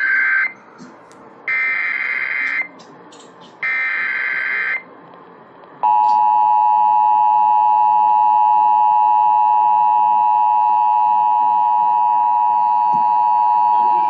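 Emergency Alert System tones from an FM radio's speaker: the end of one SAME header data burst and then two more, each a buzzing warble about a second long, followed about six seconds in by the steady two-tone attention signal, which runs for about eight seconds. It marks the start of a broadcast Severe Thunderstorm Warning.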